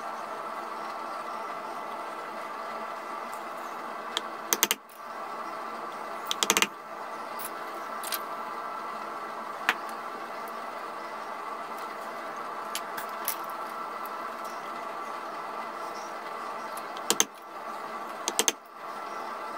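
A carving gouge clicking and tapping as it is worked into the wooden gunstock, in short clusters of sharp taps about four and a half and six and a half seconds in and twice near the end, with single clicks between. A steady background hum runs underneath.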